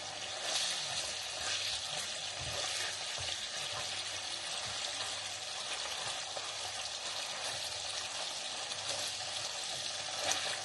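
Sausages and eggs frying in a pan: a steady sizzle.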